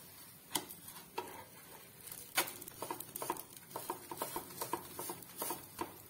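Metal spatula scraping and tapping on a nonstick tawa while flipping and pressing pancakes, a string of light clicks and scrapes with a few sharper knocks.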